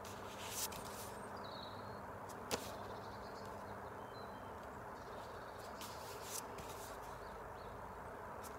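Pages of an art book being turned and handled: a few brief paper rustles and one sharp tap about two and a half seconds in, over a steady low background hiss.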